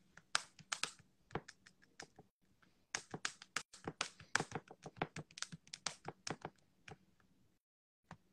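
Quick, irregular run of sharp finger taps and clicks, like typing or tapping on a hard surface close to the microphone. A few taps come in the first two seconds, then a denser run that stops abruptly.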